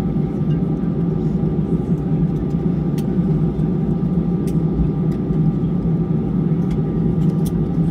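Airbus A320 cabin noise while taxiing: the jet engines running at idle make a steady hum with a low drone and a faint higher tone. A few faint clicks sound through it.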